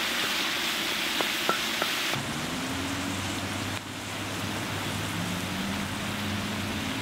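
Ground beef and chopped onions sizzling steadily in a discada, with a few light taps of a wooden spatula in the first two seconds. After about two seconds the sizzle changes and a low hum runs underneath.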